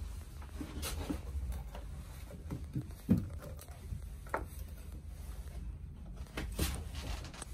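Light scattered knocks and clicks from handling fittings and moving about in a small boat cabin, over a low steady rumble; the loudest knock comes about three seconds in.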